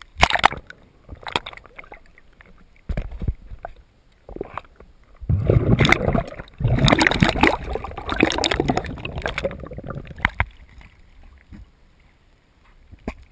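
Water splashing and gurgling against an action camera's waterproof housing as it dips under the lake surface and comes back up, in irregular bursts that are heaviest in the middle.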